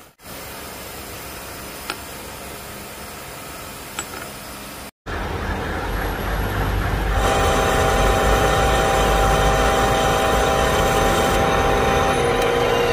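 Engine lathe running, with a steady gear whine over the noise of a boring bar cutting inside a spinning steel tube; it grows louder and the whine sets in about seven seconds in. Before it, for about five seconds, a quieter steady machine hum with a couple of light clicks.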